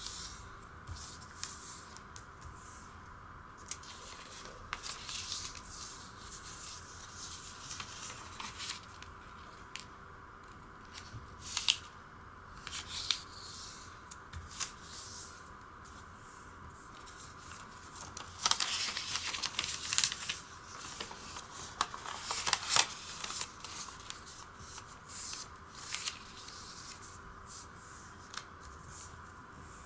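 Origami paper being folded and creased by hand on a wooden tabletop: irregular rustles and scrapes of paper, with a busy run of louder crinkling about two-thirds of the way through.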